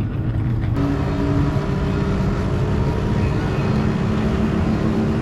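An engine running steadily with a continuous low hum; the sound changes abruptly just under a second in.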